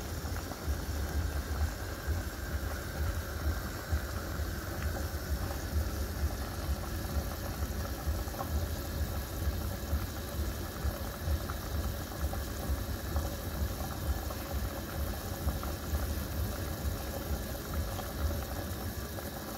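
Pot of chicken and vegetable soup boiling hard on a stovetop: a steady bubbling with a low rumble underneath.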